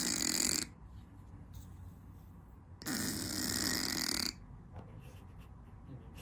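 Two long, rasping snoring breaths, about three seconds apart.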